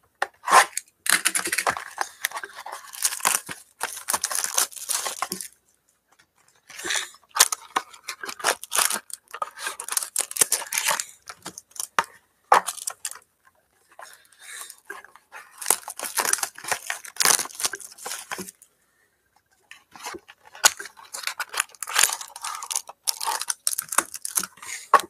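Panini Absolute basketball card packs being torn open and their wrappers crinkled, in irregular bursts of ripping and rustling with short pauses.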